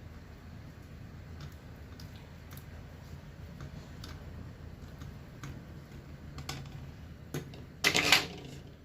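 Faint, irregular ticks of herb-infused oil dripping through a strainer, over a low steady hum; a louder brief rustling noise about eight seconds in.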